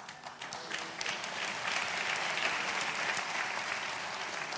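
Congregation applauding: scattered claps that quickly build into steady, full applause, easing off near the end.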